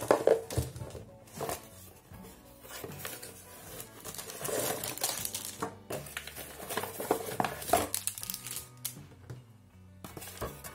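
Clear plastic bags crinkling and rustling as a multimeter and its accessories are handled and set down on a table, with background music underneath.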